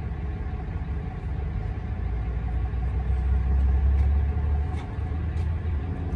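Low, steady rumble of a running vehicle engine that swells a little in the middle, with a few faint ticks.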